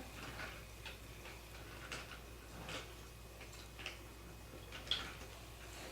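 Faint, scattered clicks and taps, about one a second, of toy train pieces being handled.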